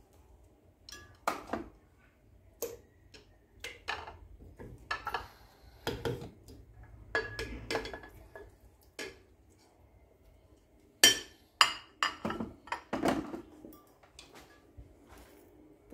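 Boiled tomatillos and chiles being moved by hand from a plate into a glass blender jar, heard as scattered knocks and clinks of plate and glass. A run of sharper knocks comes about eleven seconds in.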